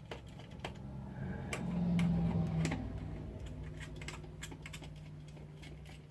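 Irregular small clicks and taps of tiny screws and plastic parts being handled and set down, over a low steady hum that swells about two seconds in.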